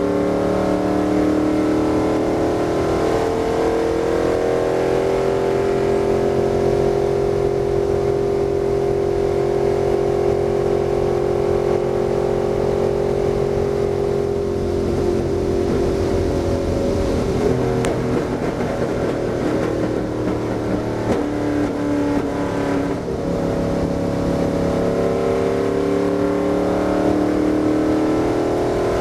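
Stock car's V8 engine heard from inside the cockpit at speed: its pitch climbs over the first few seconds and then holds steady. In the middle stretch it drops back and turns rough, and it climbs again near the end.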